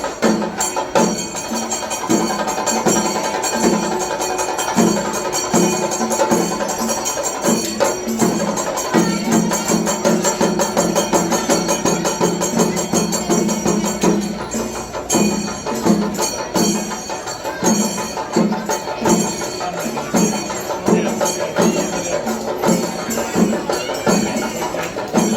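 Kerala temple festival percussion ensemble playing: drums and small hand cymbals beating a fast, steady rhythm.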